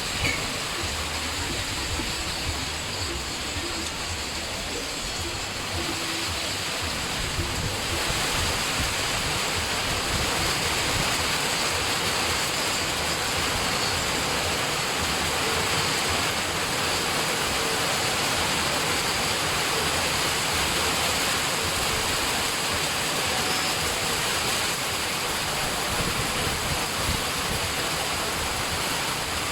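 Heavy rain falling steadily as a dense, even hiss, growing slightly louder about eight seconds in.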